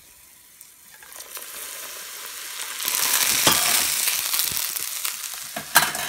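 Hot oil sizzling as it fries crushed dried bird's eye chilies and garlic in a bowl, away from the pan. The sizzle swells about a second in, is loudest for a couple of seconds, then eases, with a sharp pop near the end.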